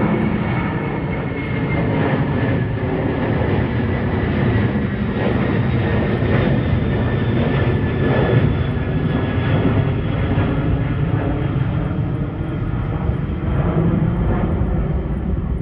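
Jet airliner flying low overhead, its engines making a loud, steady roar with a faint high whine that slowly drops in pitch.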